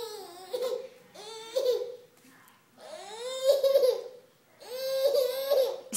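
A toddler's high-pitched laughing squeals, in five bursts: three short ones, then two longer ones, about three seconds in and near the end.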